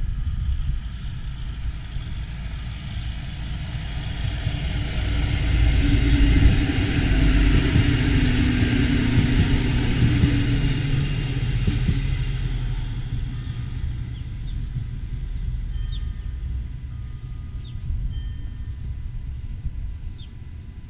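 Diesel train running past, its low engine rumble building to a peak around the middle and then fading away.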